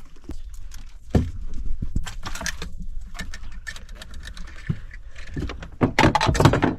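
Irregular knocks, taps and rattles on a fishing boat, with a denser, louder clatter about six seconds in.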